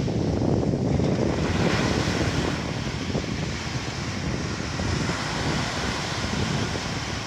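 Waves washing on a sea beach mixed with wind rumbling on the microphone, a steady noisy wash heaviest in the low end.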